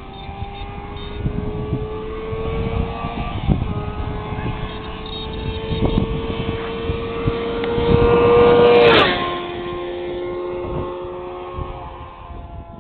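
Honda CBR600 inline-four engine running hard at speed, its note climbing slowly and loudest just before it drops sharply to a lower steady pitch about nine seconds in. Wind buffets the microphone throughout.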